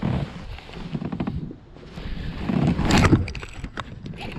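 Irregular knocks and water splashing around a plastic fishing kayak, with the loudest splash and knock about three seconds in.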